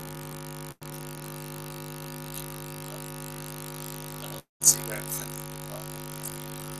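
Steady electrical mains hum, a low buzzing tone with its overtones, that cuts out briefly twice. About two-thirds of the way in comes a single sharp knock, followed by a few faint clicks.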